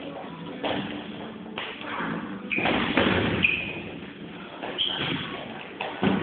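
Boxing gloves thudding as punches land during sparring: a series of dull impacts spread unevenly, the loudest cluster about three seconds in.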